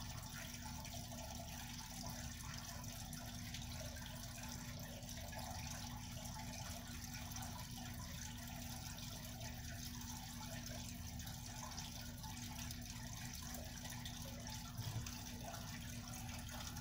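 Steady background noise: a constant low hum under an even hiss, with a brief soft bump about fifteen seconds in.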